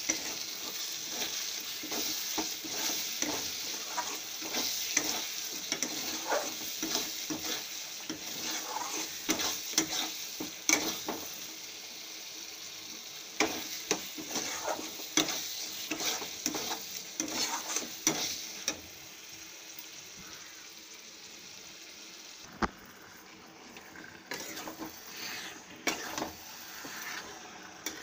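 Spice paste sizzling in hot oil in a metal wok while it is stirred, the utensil clicking and scraping against the pan. The sizzle and stirring are busiest over the first two-thirds, then ease to a quieter hiss with occasional clicks.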